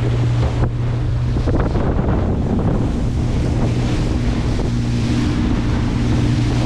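A boat under way: its engine hums steadily, fading for a moment a second or two in, under heavy wind buffeting the microphone and water rushing and splashing past the hull.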